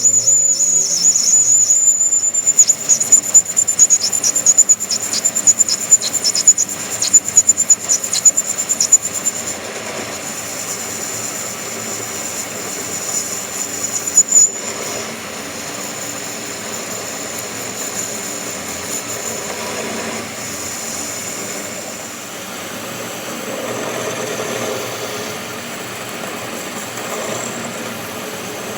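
Workshop metalworking machine running with a steady high-pitched whine and irregular sharp, loud scraping for about the first ten seconds, then running on more evenly and quietly.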